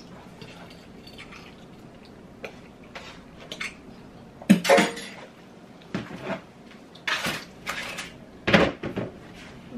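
Metal fork clinking and scraping against a ceramic dinner plate while eating, in scattered short strokes; the loudest come about halfway through and again near the end.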